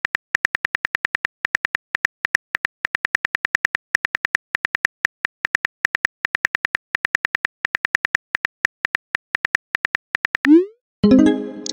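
Rapid keyboard-tap sound effect of a phone typing animation, about seven clicks a second. About ten and a half seconds in the clicks stop and a quick rising swoosh of a message being sent follows, then a short chime of several tones.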